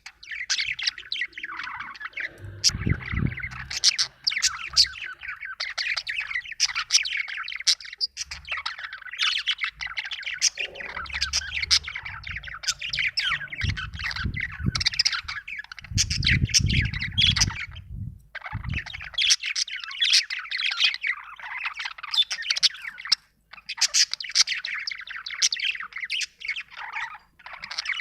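Budgerigar (budgie) chirping and chattering continuously in rapid, high warbling notes. A few low rumbling noises sound underneath, in the first few seconds and again around the middle.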